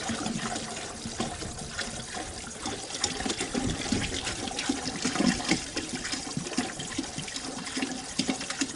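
Liquid bleach pouring from a gallon jug into a container, splashing and trickling, while a soft-wash bleach mix is made up.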